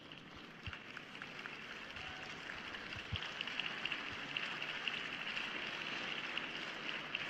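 Spectators applauding: a faint, steady crackle of many hands clapping, growing a little louder over the first couple of seconds.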